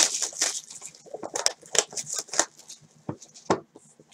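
Cardboard trading-card hobby box being handled and opened: a quick run of rustles, scrapes and crinkles, with a sharp one at the start and a lull near the end.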